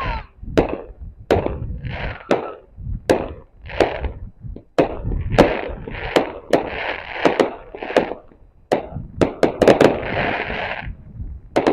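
Consumer 100-shot firework cake firing: a steady string of sharp shots about every half second to second, each trailed by a short hissing burst, with several shots in quick succession near the end.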